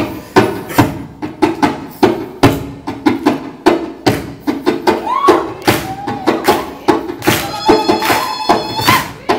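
Djembe played by hand in a lively improvised rhythm, about three sharp strokes a second. A higher sustained ringing tone joins the drumming in the second half.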